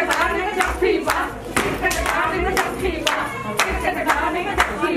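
Several voices singing together, accompanied by steady hand clapping in time, about two claps a second.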